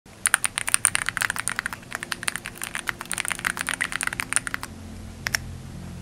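Computer keyboard typing: a quick run of keystrokes for about four and a half seconds, then two more taps near the end, with a low hum rising faintly underneath.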